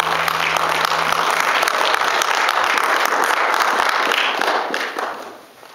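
Audience applauding after a song, the clapping dying away about five seconds in. The last low bass note of the song rings out under the first second or so.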